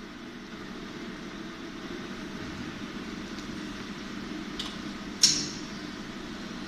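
High-frequency PVC welding machine running with a steady hum, with a faint click about four and a half seconds in and a single sharp clack just after five seconds.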